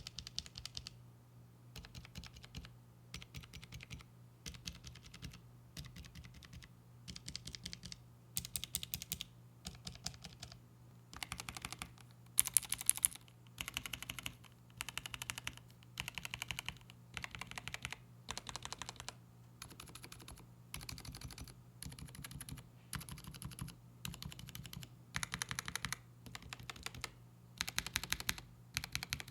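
Gateron mechanical keyboard switches on a switch tester, pressed in quick runs of clicking keystrokes, a group every second or so. From about ten seconds in the switches have keycaps fitted, and the clicks turn fuller and lower. A faint low hum runs underneath.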